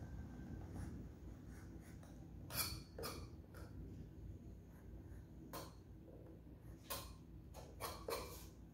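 Faint, short scratches of a small knife blade cutting along the edge of a thin blue sheet on a wooden board, about seven strokes at uneven intervals, most of them in the second half.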